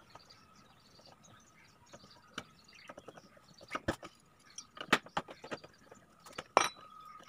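Motorcycle's front number plate being handled and moved: scattered sharp clicks and knocks of plastic and metal, the loudest about five and six and a half seconds in.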